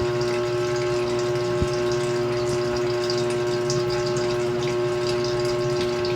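LG Turbo Drum washing machine running: a steady, even hum with a pulsing low throb, over water swishing in the drum.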